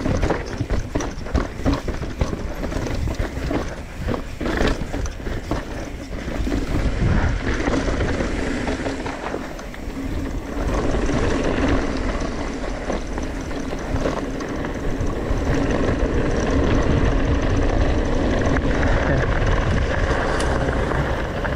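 Mountain bike descending: a steady rush of wind on the camera microphone, with rapid rattling knocks from the bike over roots and rocks in the first few seconds, then a steadier rolling rush of tyres over smoother dirt and gravel.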